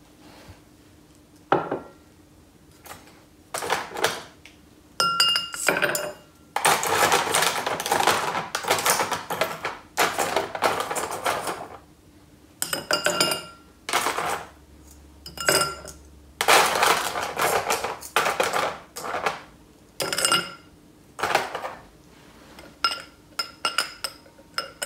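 Ice cubes rattling as they are picked out with metal tongs and dropped one at a time into a tall highball glass: a string of clinks and knocks, many with a short ringing note from the glass, and longer stretches of ice rattling in between.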